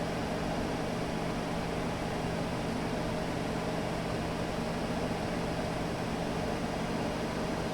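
Car engine's electric cooling fan running at a steady speed: an even rush of air with a steady low hum underneath.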